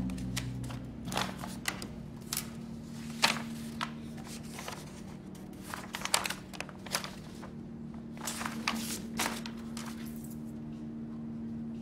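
Paper documents rustling and flapping as the sheets are handled and leafed through: a run of short, sharp rustles that stop near the end, over a steady low room hum.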